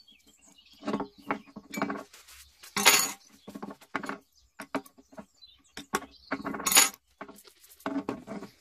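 Metal clinks and knocks of a T-handle socket wrench turning the screws of a pole pruner's fuel tank and being handled and put down on the workbench, with two sharper clatters about 3 and 7 seconds in.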